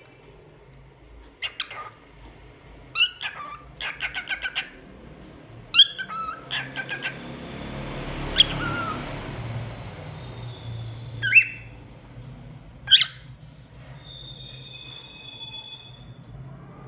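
Lutino cockatiel chirping and whistling: short sharp calls, quick runs of repeated notes, and a held steady whistle near the end.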